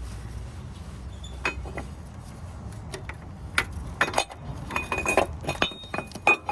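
A loose metal engine-mount bracket clinking and knocking against the engine and tools as it is worked free and handled. There are scattered sharp clinks, coming thicker in the second half, some with a short metallic ring.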